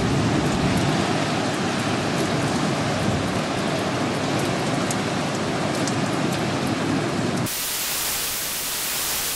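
Steady storm noise of rain and wind, heaviest in the low range with faint ticks of drops above it. About seven and a half seconds in it cuts abruptly to a thinner, even hiss.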